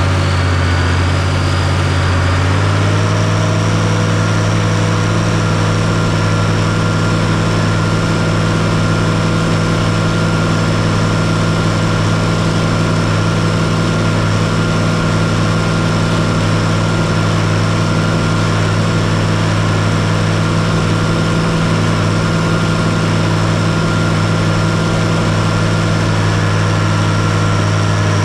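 Tractor engine running steadily while pulling a hay baler, its pitch rising over the first few seconds and then holding steady.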